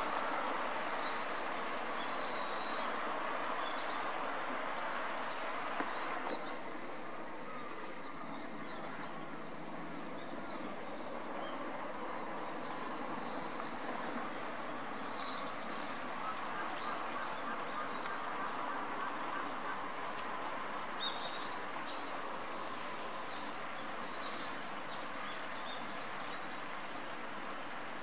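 Short, high chirps and call notes from birds, scattered every second or two over a steady rush of background noise; one louder call about eleven seconds in.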